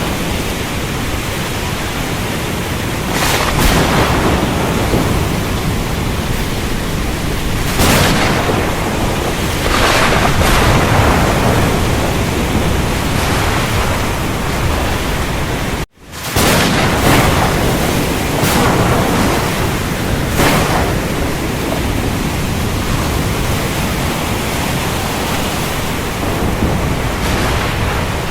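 Thunderstorm: a steady heavy rush of rain with several louder swells through it. The sound cuts out for an instant about halfway through.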